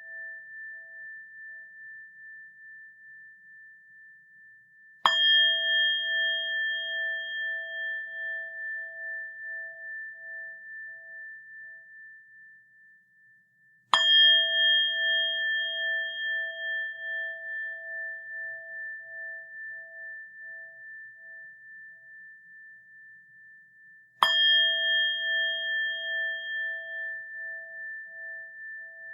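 A bell struck three times, about nine to ten seconds apart, each strike ringing on in a few clear pure tones that fade slowly with a gentle wavering. The ring from the strike before is still dying away at the start.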